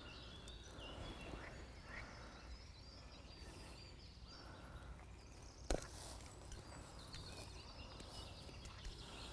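Faint outdoor ambience with small birds chirping in the background, and a single sharp click a little past halfway through.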